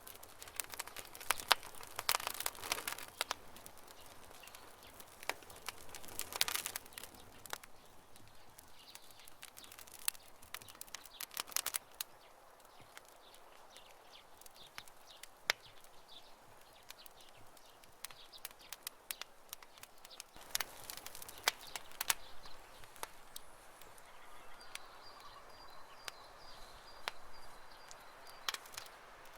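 Campfire crackling, with sharp pops coming in clusters over a faint hiss, and a bird chirping faintly in the background near the end.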